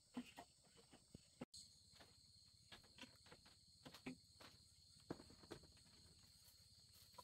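Faint steady chirring of night insects, with scattered soft knocks and taps from bare feet and plastic basins on a slatted bamboo floor.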